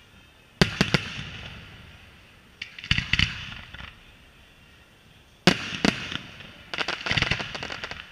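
Aerial firework shells bursting overhead: four loud volleys about every two and a half seconds, each a sharp bang or quick string of bangs with a fading tail, the last one crackling.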